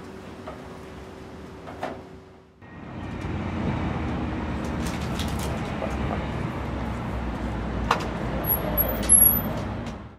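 Quiet room tone, then a steady low outdoor rumble of wind and distant traffic. Near the end a metal-framed glass entrance door clicks and is pulled open with a clunk.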